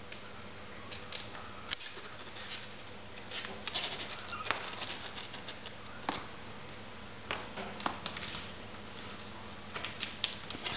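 Five-week-old kittens scuffling in play on a fabric blanket: scattered light scratches, rustles and clicks, in clusters about four seconds in, around six to eight seconds, and near the end.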